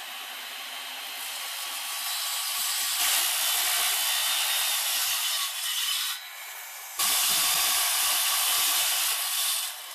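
Circular saw cutting shallow kerfs into a softwood timber beam inside a mortise layout. The cut builds over the first few seconds, eases off briefly past the middle, then cuts again until near the end.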